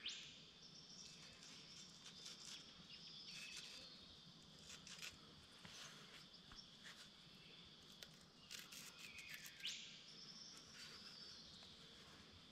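Near silence: faint bush ambience of small birds chirping and insects, with a couple of quick sweeping bird calls, one at the start and one about ten seconds in.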